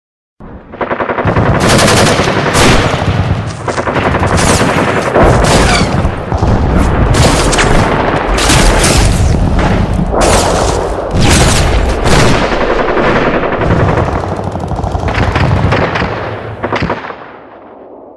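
Gun battle sound effect: dense, continuous automatic gunfire with overlapping machine-gun bursts. It starts about half a second in and dies away near the end.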